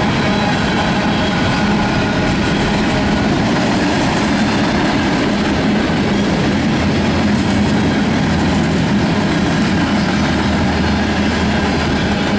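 Freight cars of a Canadian National mixed freight train (covered hoppers, centerbeam flatcars, a gondola) rolling past on steel wheels and rail: a steady, loud rumble with a few steady ringing tones from the wheels.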